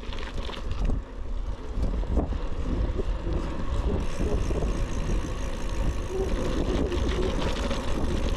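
Wind buffeting a GoPro Hero 12 Black's built-in microphones with wind reduction off while riding a bicycle: a heavy, gusty low rumble with scattered clicks and rattles, growing louder at first and then steady.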